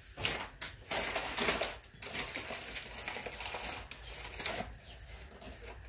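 Rummaging through loose small metal hardware: irregular clinking and rattling, busiest between about one and two seconds in.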